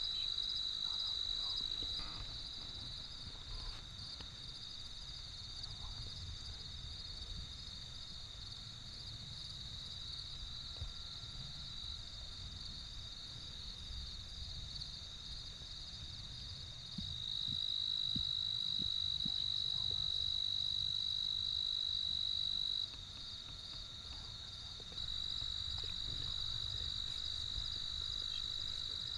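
A steady, high-pitched chorus of crickets trilling in the evening, with a faint low rumble of wind on the microphone; the chorus jumps in loudness a few times where the footage is cut.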